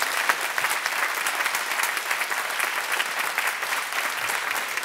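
Audience applauding, a steady, unbroken round of clapping.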